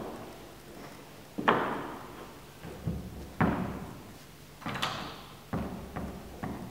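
Six sharp thuds and knocks, irregularly spaced about a second apart, each ringing on in the long echo of a large sports hall.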